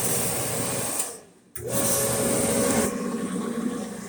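GE clothes dryer's drum motor and blower running. They wind down about a second in, start again abruptly half a second later, and settle to a lower, steadier sound near the end.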